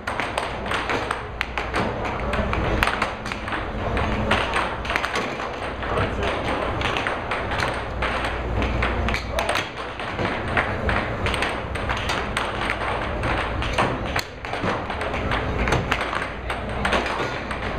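Air hockey puck being struck by plastic mallets and clacking off the table's rails in rapid, irregular sharp clicks. Under it runs a steady low hum from the table's air blower.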